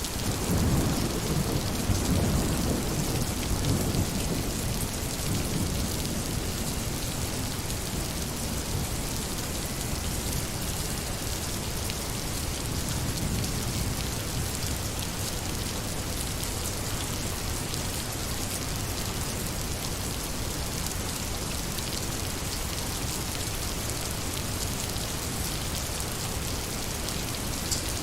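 Steady rain falling, an even hiss of drops. Thunder rolls in just after the start and rumbles away over the first few seconds.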